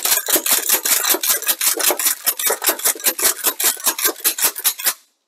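Mossberg 590A1 pump-action shotgun being racked rapidly by hand, its action clacking back and forth about five times a second as it ejects loaded 12-gauge mini shells. The magazine feeds through without a hitch and runs empty, and the clacking stops about five seconds in.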